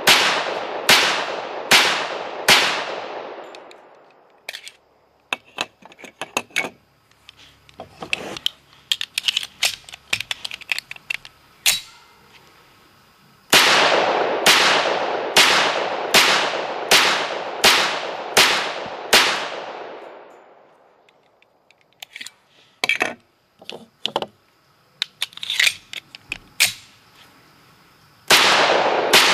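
Sig Sauer 1911 Fastback Nightmare pistol firing in quick strings of shots, a little under one a second, each crack with a short ringing tail. About eight shots fall in the middle of the stretch and more come near the start and the end, with quieter clicks and pops in the gaps. The pistol cycles every round without a malfunction.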